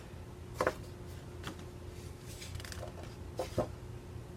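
A few brief, soft rustles and taps as sheets of patterned craft paper are handled, over a faint steady hum.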